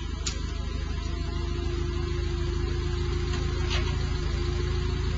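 Forklift engine running steadily with a low, pulsing rumble; a steady whine joins about a second in.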